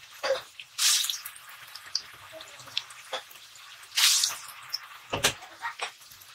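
Cabbage-and-gram-flour kofta deep-frying in hot oil in a kadhai: a steady crackle and pop of sizzling. Two louder hissing surges, about a second in and about four seconds in, come as more kofta are slipped into the oil. There is a sharp knock about five seconds in.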